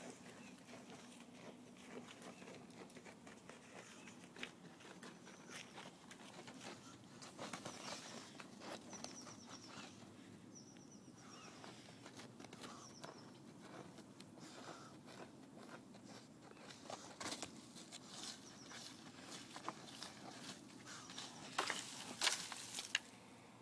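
A puppy digging in dirt: its paws scratch and scuff the soil in irregular quick strokes, with a louder flurry near the end.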